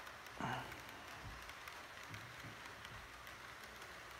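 Model freight train rolling past on its track: a faint steady crackly rumble with irregular light clicks of the wheels over the rails. A short louder sound about half a second in.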